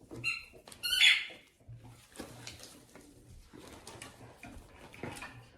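A dog's squeaky ball squeaking twice, short and high, in the first second and a half, followed by quieter rustling as the hay net packaging is handled.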